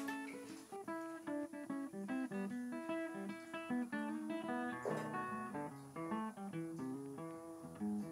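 Background music: an acoustic guitar plucking a melody, note after note, with a few strummed chords.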